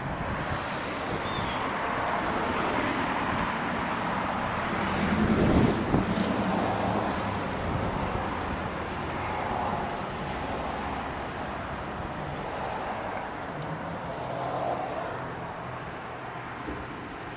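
Highway traffic passing steadily, with one vehicle going by louder about five to six seconds in.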